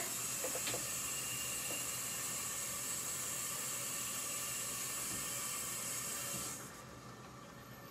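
Water hissing in a hot stainless-steel pot on an electric stove just after fresh water was poured in, a steady hiss that drops away about six and a half seconds in.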